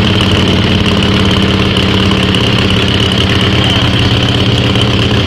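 1976 Harley-Davidson Ironhead Sportster's air-cooled V-twin idling steadily through its exhaust. The owner suspects a small air leak at the carburetor and possibly a timing issue.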